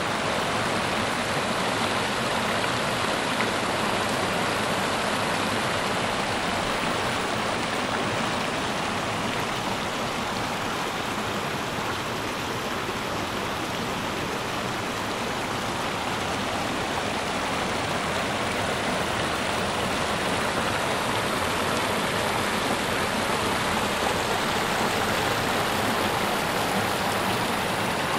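Rocky creek running with snowmelt: a steady rush of water over stones, slightly quieter near the middle.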